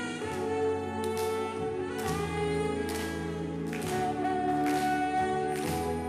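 Music with held melody notes over a steady beat.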